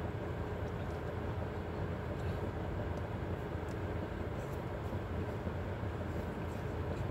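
Steady low rumble inside a car's cabin, with a few faint crinkles as a sandwich wrapper is handled.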